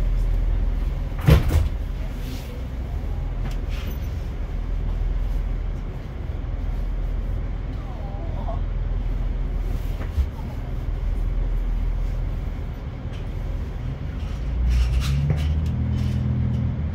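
Diesel train engine idling while the train stands at a platform, heard from inside the carriage, with a sharp knock about a second in. Near the end the engine note rises and grows louder as the train starts to pull away.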